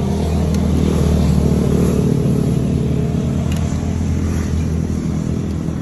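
Motor engine running steadily, swelling in level about a second in and easing off later. A few light metal clicks from tongs on the aluminium steamer tray.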